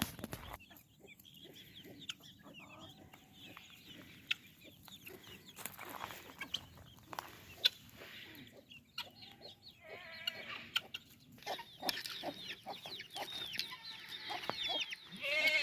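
Free-ranging chickens clucking, sparse at first and busier in the last few seconds, with scattered light clicks and rustles.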